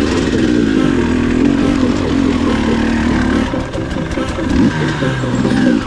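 Two-stroke enduro dirt bike engine revving up and down again and again under throttle as the bike is ridden along a tight trail.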